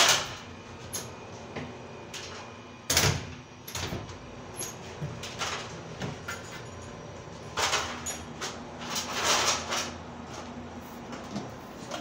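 Metal door being opened and let swing under a newly installed door closer, being tested: a series of clunks and knocks, the loudest about three seconds in, with longer rushes of noise around eight and nine seconds.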